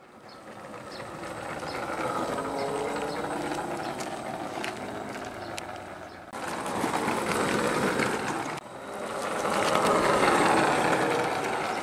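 Home-built RC car driving, its electric motor and plywood gear train whirring, with many small ticks, swelling up from silence at the start.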